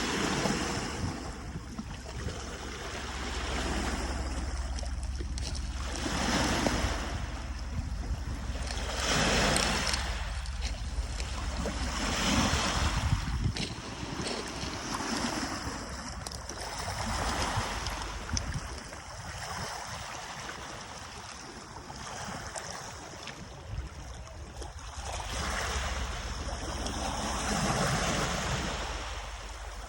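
Waves washing onto the Lake Ontario shore, a wash of water that swells and falls back every two to four seconds. A low rumble of wind on the microphone sits underneath.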